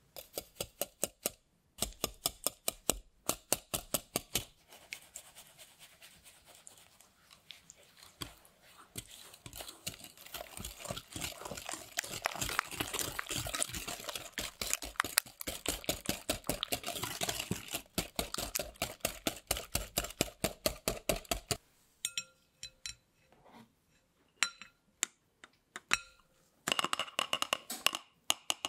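Wire whisk beating eggs and sugar in a glass mixing bowl: fast, continuous clicking of the wires against the glass, growing denser and louder partway through. It stops about three quarters of the way in, followed by a few sharp ringing taps and then a quick run of taps as flour is tipped into a metal mesh sieve.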